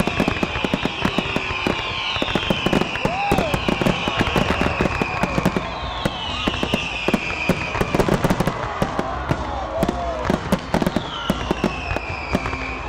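Aerial fireworks going off in a dense barrage: rapid overlapping bangs and crackling from bursting shells, with several high whistles that fall in pitch.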